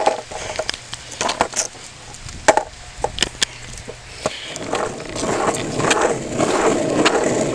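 A few sharp knocks and clicks, then from about halfway a longboard's wheels rolling over asphalt, a steady rolling noise that grows louder.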